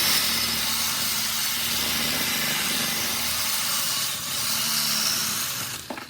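Power tool blade cutting into a microwave magnetron's steel body and copper anode, a loud steady grinding hiss with a motor hum underneath; it starts abruptly and winds down near the end.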